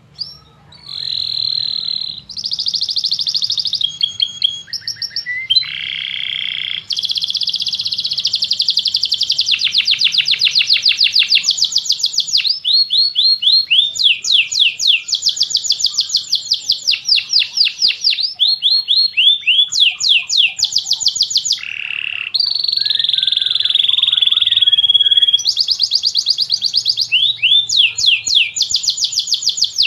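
Domestic canary singing a long, unbroken song of rapid trills and rolls, switching to a new phrase every second or two.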